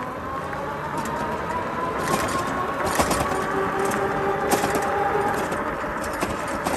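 MEIGI three-wheel electric bike's motor whining as it accelerates, the whine rising slowly in pitch as speed climbs from about 10 to 19 mph. Scattered knocks and rattles come from riding over rough, cracked asphalt.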